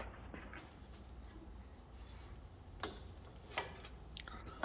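Faint rubbing and handling of a rubber fuel line being twisted around at a plastic lawnmower carburetor, with two light clicks about three seconds in.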